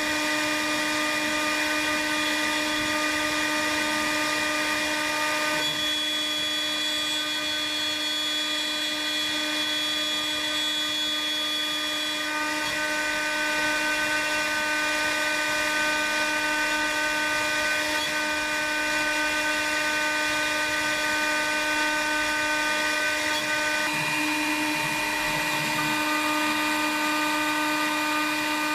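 CNC router spindle with a 6 mm radius cutter milling a laminated wooden blank: a steady high whine made of several tones, which shift pitch about 6, 12 and 24 seconds in.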